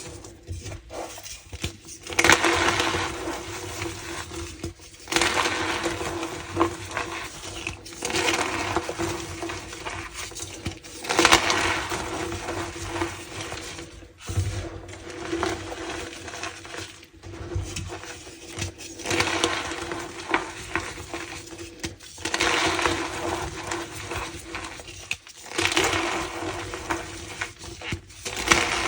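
Dyed blocks of gym chalk being crushed and crumbled, a squeaky crunching that comes in repeated bouts of a few seconds with short pauses between.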